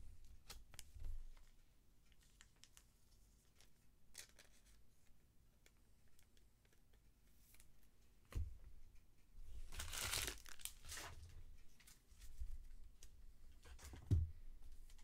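Plastic trading-card pack wrapper crinkling and tearing, loudest for about a second and a half some ten seconds in. Faint clicks of cards being handled before it, and a couple of soft thumps on the table.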